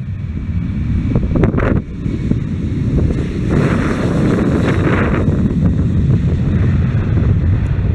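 Heavy wind buffeting on the microphone over the steady rumble of a Boeing 737's jet engines as the airliner taxis close by, growing louder over the first few seconds.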